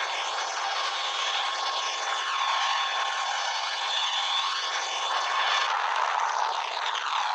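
Helicopter noise heard from aboard during aerial filming: a steady, even drone with a faint high whine over it, shifting slightly about six seconds in.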